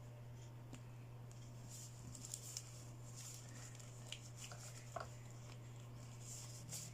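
Small plastic toy accessories and packaging handled during an unboxing: a few light clicks and rustles, the sharpest about two and a half seconds in and again about five seconds in, over a steady low hum.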